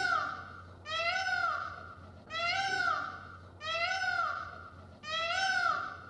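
Male Indian peafowl calling, one call about every second and a half, each rising and then falling in pitch.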